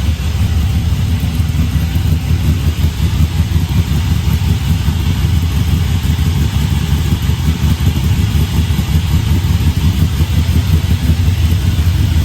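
LS1 V8 engine in a Holden HQ idling steadily just after a cold start, still on its initial cold idle before the idle air control motor settles it down.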